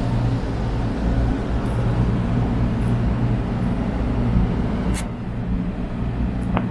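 Steady low mechanical rumble with wind buffeting the microphone, and a single sharp click about five seconds in.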